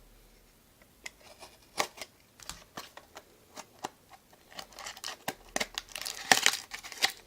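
Baseball card packaging being torn and crinkled open by hand: scattered small clicks and crackles of wrapper and cardboard, sparse at first, then busier and louder from about halfway.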